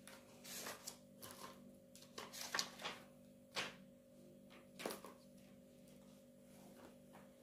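Faint handling noise: a handful of soft clicks and rustles over the first five seconds, over a faint steady electrical hum.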